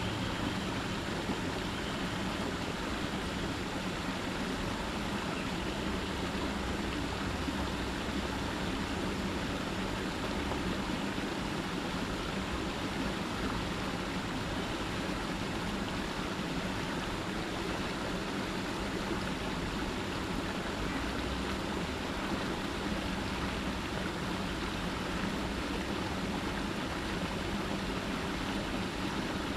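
Small cascade of water spilling over rocks into a shallow stream channel, a steady rushing splash.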